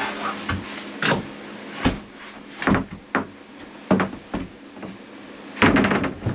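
A large sheet of 3/4-inch plywood being lowered onto a wooden bed frame, with a series of knocks and thumps as it is set down and shifted; the loudest cluster comes near the end as the board settles flat. A steady hum runs underneath.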